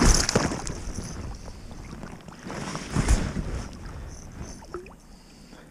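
A small northern pike splashing at the surface as it is reeled in beside a canoe. There are two bursts of splashing, one at the start and one about three seconds in, over wind rumbling on the microphone.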